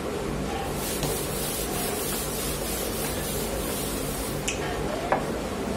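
A whiteboard duster wiping across a whiteboard, a steady dry hiss lasting about three and a half seconds, followed by a couple of light clicks near the end.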